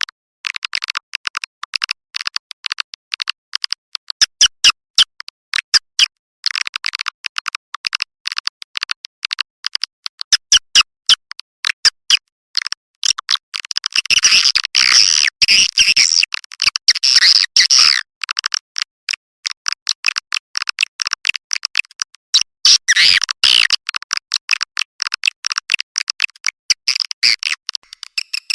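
Recorded white-nest swiftlet calls played as a swiftlet-house lure: a dense, unbroken stream of rapid high-pitched chirps and twitters with no low sound at all. The chirping grows thicker for a few seconds around the middle and again briefly near the end.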